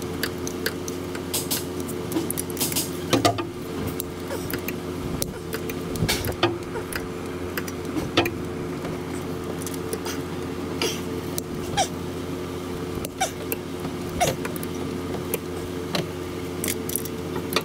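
Hand tools working on a cylinder head's bolts: scattered sharp metallic clicks and clinks, with a few short squeaks, over a steady low hum.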